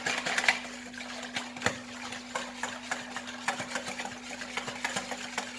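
Thin chickpea-flour karantika batter being stirred in a bowl, with quick irregular clicks and scrapes of the utensil against the bowl.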